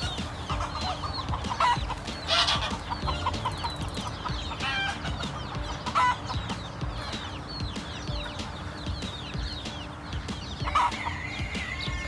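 Domestic chickens clucking in short notes, with a rooster starting a long crow near the end.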